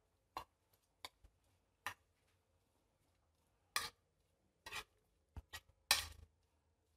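Metal spoon tapping and scraping against a plate while mixing fried green chillies, in scattered short clicks, the loudest about four and six seconds in.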